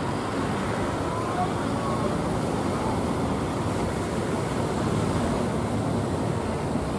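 Steady churning of breaking surf mixed with the running engines of wooden fishing boats crossing the waves, heard together as one even rushing noise.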